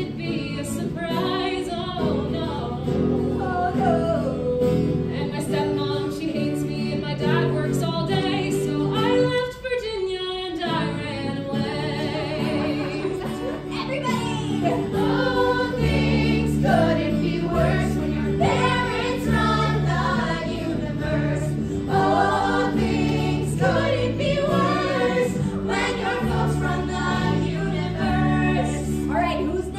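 A musical theatre song: several cast voices singing together to a live band, including an acoustic guitar played on stage. The music breaks off briefly about ten seconds in, and a stronger bass line carries the second half.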